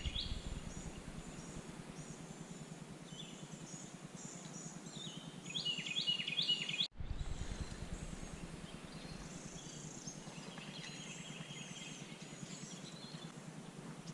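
Songbirds chirping and warbling in the woods over a steady low background hiss, with a brief dropout in the sound about seven seconds in.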